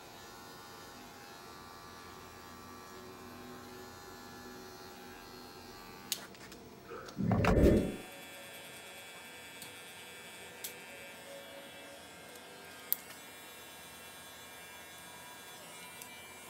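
Wahl electric hair clippers running with a steady buzz while cutting hair. About seven seconds in comes a loud low thump, and a few sharp clicks follow.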